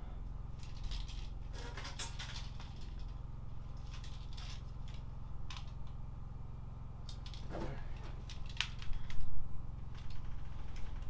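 Scattered light clicks and small metallic rattles from metal chimney hardware being handled and fitted, with a louder cluster of knocks near the end, over a steady low hum.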